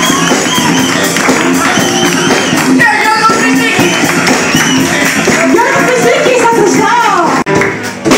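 Live band playing loudly, with singing over guitar and a steady percussion beat, heard close and full on a phone microphone. The sound dips briefly near the end.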